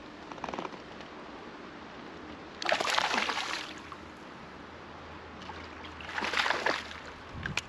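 A hooked black bass splashing and thrashing at the surface while being played on the rod, in two bursts: a louder one about three seconds in and another about six seconds in.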